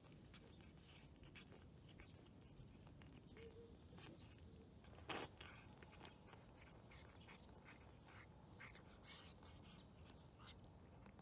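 Faint wet chewing and mouth clicks of a ginger tabby cat eating soft wet cat food from a plastic dish, with one louder sharp noise about five seconds in.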